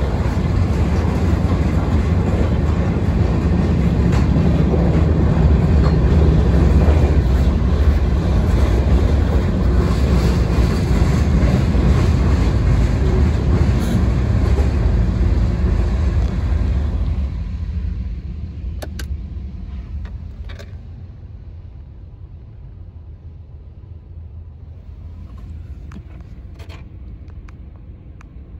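Freight cars rolling past on the rails, a steady low rumble with wheel clatter, heard from inside a car. It fades out about 17 seconds in as the last car clears, leaving a quieter low rumble with a few faint clicks.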